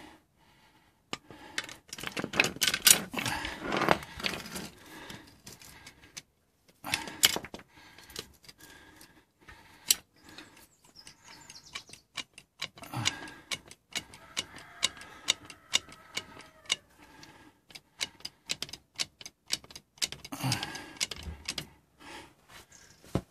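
Trolley jack being placed and worked under the Land Rover Defender's front axle: an irregular run of metallic clicks and clatter from the jack and its handle.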